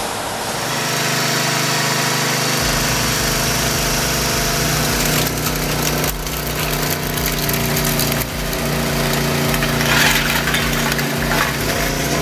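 A machine's engine running steadily under load, with a few knocks about halfway through and a louder hissing, grinding surge about ten seconds in.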